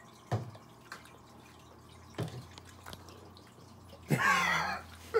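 Sipping a fizzy chocolate soda from a plastic cup: a few small wet sips and swallows, then a short groan about four seconds in at the horrible taste.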